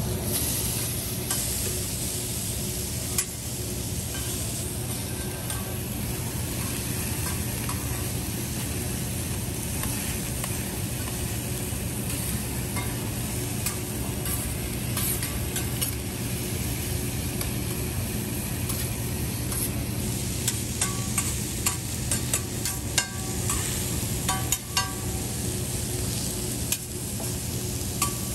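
Steak, lobster tails, shrimp, fried rice and vegetables sizzling steadily on a steel teppanyaki griddle, over a steady low hum. A metal spatula and fork scrape and clink on the steel now and then, with a quick run of sharp clinks in the last third.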